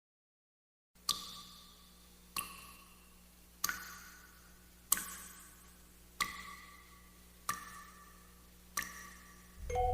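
Slow, sharp ticking: seven ticks about 1.3 seconds apart, each with a short metallic ring. A soft mallet-percussion melody comes in right at the end.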